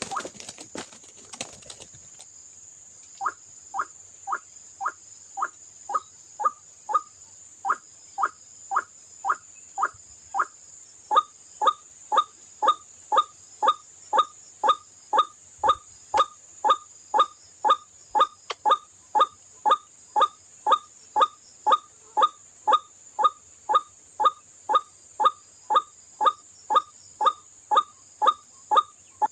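White-breasted waterhen calling: a short rising "kruak" note repeated steadily about one and a half times a second, after a brief crackling noise and pause in the first two seconds. A steady high-pitched whine runs underneath.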